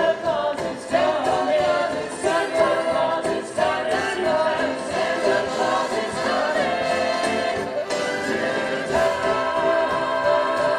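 Choir singing Christmas music, ending on a long held chord.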